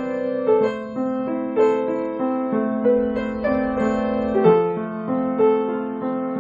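Background piano music: a gentle melody of notes struck about twice a second over held chords.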